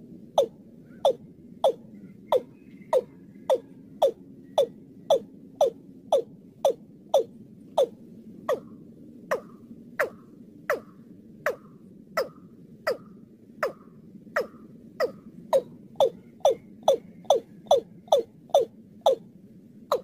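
Watercock (Gallicrex cinerea) calling: a steady run of short, sharp, knocking notes, about three every two seconds, played as a bird-trapping lure call.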